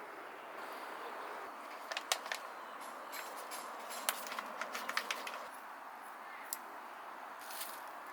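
A quick run of light clicks and taps in the middle, then a couple of single clicks, over a steady hiss.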